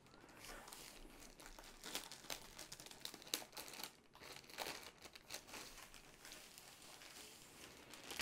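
Clear plastic sleeve crinkling as it is pulled off a rolled diamond-painting canvas, in irregular crackles throughout.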